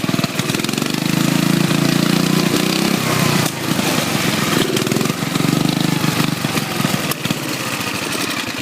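Racing lawn mower's small Briggs & Stratton single-cylinder engine running during a ride, its speed rising about a second in and again about five seconds in, with a brief drop between.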